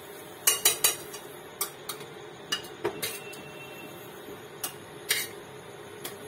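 Metal ladle clinking and scraping against the inside of a pressure cooker as gravy is stirred: three quick knocks about half a second in, then scattered single clinks. A steady low hum runs underneath.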